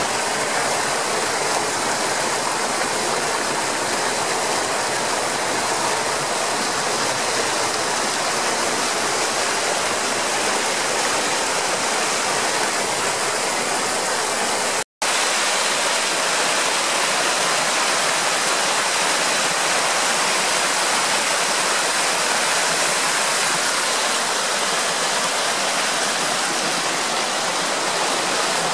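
The Bode river's small upper waterfall, water cascading over rocks in a steady, full rush of noise. The sound cuts out completely for an instant about halfway through.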